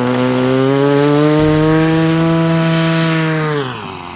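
Radio-controlled model airplane engine running at a steady high pitch, rising slightly, then dropping in pitch and fading about three and a half seconds in.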